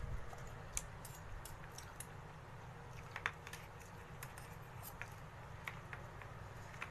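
Scattered light clicks and scrapes of a metal fork and spoon against a bowl as meatballs are cut and scooped, over a low background hum.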